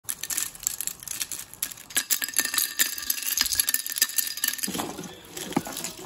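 A freshly cast brass nugget dropped from tongs onto a concrete paver stone, clicking and rattling as it bounces and settles, with a bright ringing metallic tone typical of brass. Near the end it gives way to softer rustling and handling.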